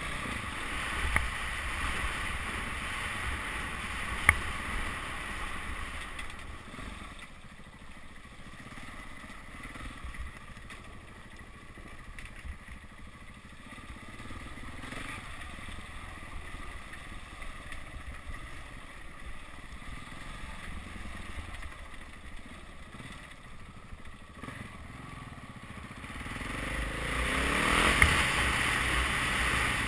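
KTM 690 Enduro's single-cylinder engine running at low revs over a rough dirt track, with wind buffeting a helmet microphone and two sharp knocks in the first few seconds. Near the end the engine and wind noise swell louder.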